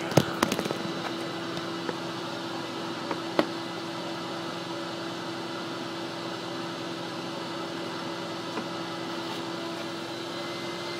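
Two Lamb 117500-13 vacuum motors of a Savage 1 electric truckmount carpet extractor running in parallel under load, pulling through 215 feet of 2-inch hose: a steady hum at a constant pitch. A few clicks and knocks in the first half second and one more about three and a half seconds in.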